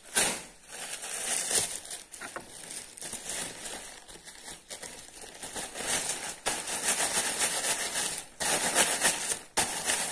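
Thin plastic carry bag crinkling and rustling as it is shaken, turned and wiped dry by hand, louder and busier in the second half.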